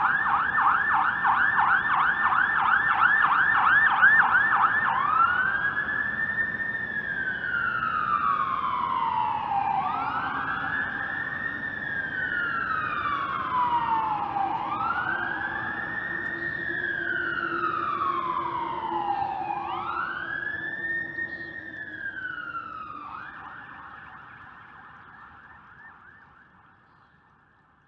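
Electronic ambulance siren sounding a fast yelp, then switching to a slow wail that rises quickly and falls slowly four times, then back to a fast yelp that fades away near the end.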